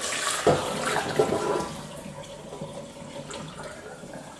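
Water from a cheesecake's water bath being tipped out of a baking tray and poured away, gushing and splashing at first, then running on more quietly.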